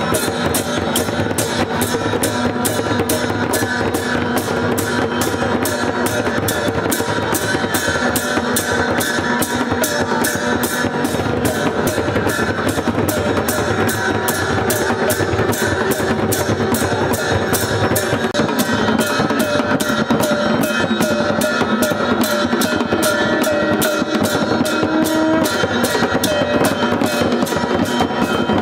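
A band of large stick-beaten processional drums playing a steady, even beat, with held tones sounding over the drumming.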